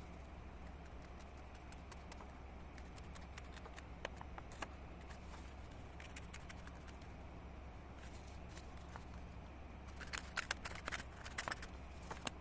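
Scissors snipping through drawing paper, a quick run of sharp snips near the end, after scattered light clicks and paper handling. A steady low hum sits underneath throughout.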